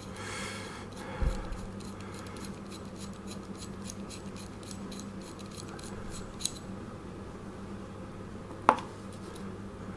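Small metal parts of a Badger Krome airbrush being handled and unscrewed: light scraping of the back handle and internal parts, with a few sharp metallic clicks, the loudest near the end.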